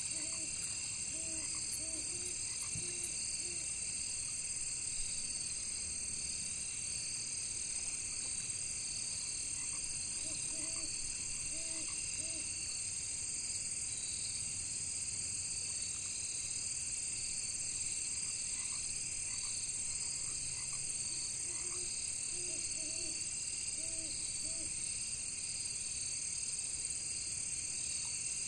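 A steady, high-pitched chorus of crickets and other insects. A frog croaks in three short bouts of several calls each: at the start, around ten seconds in, and a little past twenty seconds.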